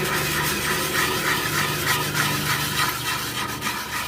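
Sandpaper being rubbed by hand over the PVC pipe shell of a ketipung drum, a steady scratching hiss with quick, regular strokes. It smooths away leftover glue before a strip of tyre rubber is glued on.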